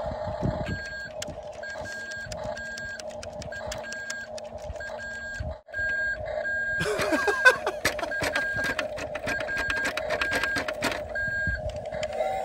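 Toy RC dump truck tipping its bed: a steady electric motor whine with a repeating electronic warning beep, about two beeps a second. About seven seconds in, there is a short rattle of dirt sliding out of the bed.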